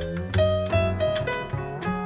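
Small jazz group playing live: a quick run of plucked guitar notes over a double bass line.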